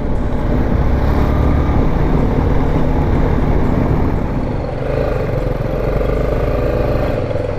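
BMW G310GS single-cylinder motorcycle engine running while riding, with wind and road noise. About five seconds in, a steadier pitched engine note comes in.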